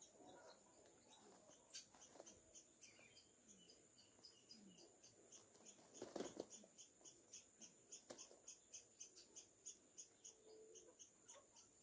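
Faint outdoor ambience of an insect calling in a steady series of short, high pulses, about four a second, over a constant high whine. About six seconds in there is a brief louder rustle.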